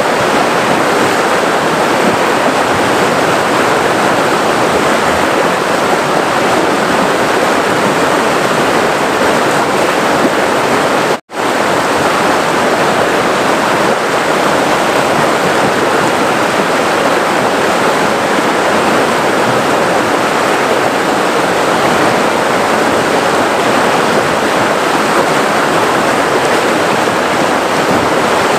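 River water flowing and rushing in a steady, even roar. The sound cuts out for an instant about eleven seconds in, then carries on unchanged.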